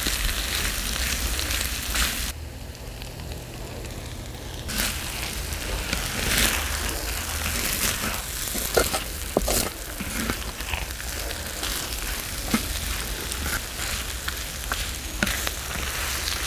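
Food sizzling on a cast-iron cauldron-lid griddle, a steady frying hiss with scattered sharp clicks. The hiss dulls for a couple of seconds about two seconds in.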